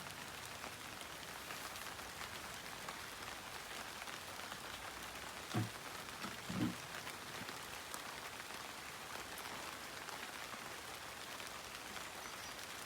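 Steady rain falling, a constant patter of drops. Two short low thuds, about a second apart, stand out a little past the middle.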